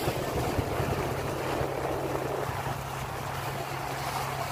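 Fishing boat's engine running with a steady low drone under the rush of wind and water past the hull of the moving boat.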